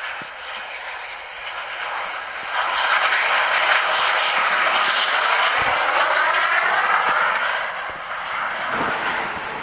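Jet aircraft flying low past the airfield: a roaring whoosh that swells about two and a half seconds in, stays loud through the middle with a sweeping, phasing quality as it passes, then fades away near the end.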